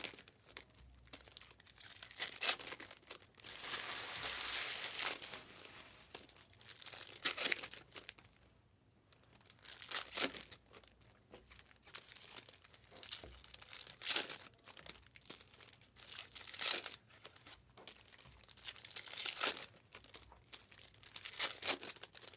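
Foil trading-card pack wrappers being torn open and crinkled by hand, in a run of irregular ripping and crinkling bursts with a brief lull partway through.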